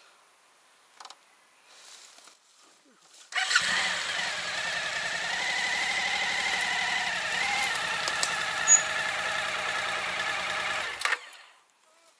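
Suzuki V-Strom motorcycle engine starting suddenly about three seconds in and running loud and steady with a high whining note over it, then stopping abruptly after about seven seconds.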